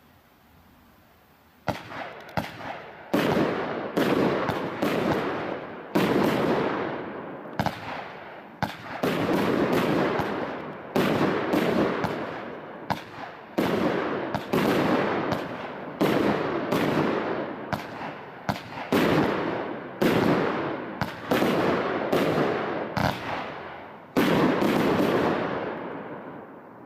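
Brothers Pyrotechnics aerial fireworks firing in a rapid string of sharp shots, about one a second, each followed by the fading hiss of the burst. The firing starts about two seconds in.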